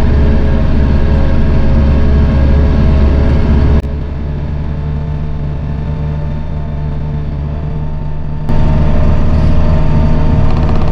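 Diesel tractor engine running steadily under work, a low drone. Its level drops suddenly about four seconds in and jumps back up about four and a half seconds later.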